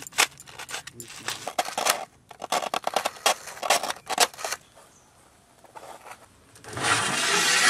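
Serrated knife sawing and crunching through dry, crisp rusk toast on a steel plate, a quick run of sharp cracks. Near the end a short swell of hiss rises and cuts off.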